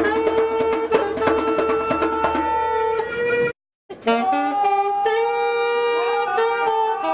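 Live saxophone holding a long note over quick djembe hand-drum strokes, then a moment of dead silence about halfway through, after which the saxophone plays a moving melody with the drum hardly heard.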